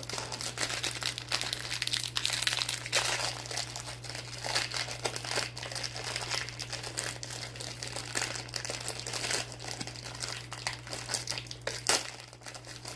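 Crinkling and crackling of s'mores Pop-Tarts packaging being handled and opened, irregular and continuous, over a steady low hum.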